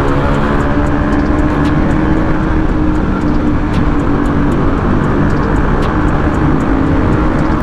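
Motorcycle engine running at a steady pitch while under way, with a low rushing noise underneath.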